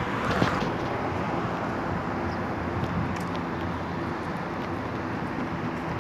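Steady city road traffic noise, an even rush with a low vehicle hum underneath.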